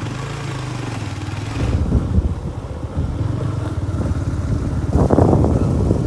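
Motorcycle engine running, at a steady pitch for the first couple of seconds and then a rougher, uneven rumble. A louder rushing noise comes in about five seconds in.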